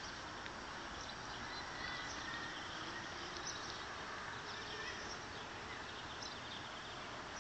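Outdoor park ambience: a steady low hiss with a few faint, scattered high bird chirps.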